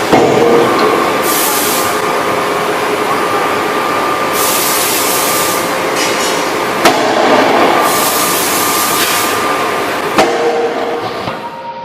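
Hydraulic closed-die forging hammer at work: a few sharp blows over a steady machine hum. Several bursts of loud hissing come between the blows.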